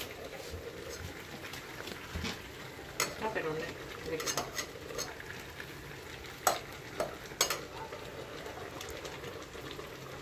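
A pot of nikujaga simmering with a steady sizzle while it is stirred to work the sugar in, a utensil clinking sharply against the pot about five times, mostly between three and eight seconds in.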